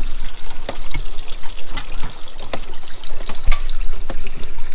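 Rainwater trickling and dripping in a roof gutter: a steady hiss with many irregular splashing drops.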